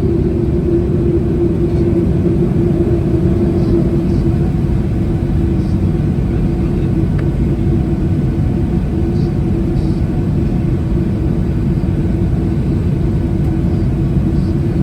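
Boeing 737-800's CFM56-7B jet engines at taxi power, heard inside the cabin beside the wing: a steady low rumble with a constant hum.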